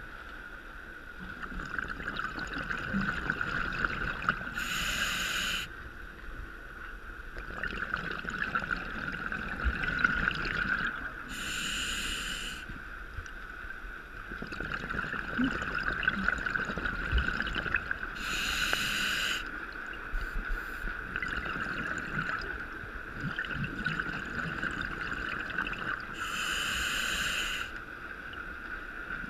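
Scuba diver breathing underwater, heard through the camera housing: exhaled bubbles from the regulator rush out in bursts of about a second, four times, roughly every seven seconds, over a steady hum.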